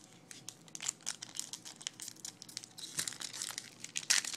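Foil wrapper of a 2012 Bowman baseball card pack crinkling as it is picked up and handled, then starting to tear open, in a run of sharp crackles that get busier near the end.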